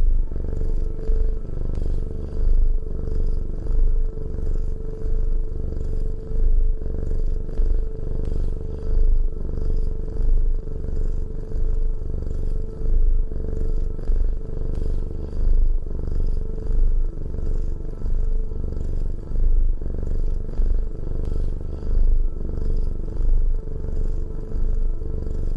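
Domestic cat purring close up: a continuous low rumble that swells and fades about every two seconds.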